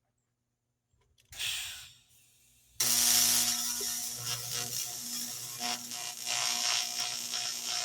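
TIG welding arc on aluminum: a short hiss about a second in, then the arc strikes suddenly and runs with a steady buzzing hum and a crackling hiss.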